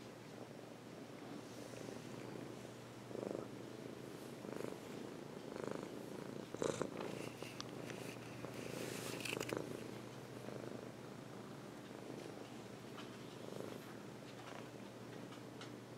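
Maine coon cat purring steadily close to the microphone, with a few soft bumps and rustles in the middle, the sharpest a little before halfway.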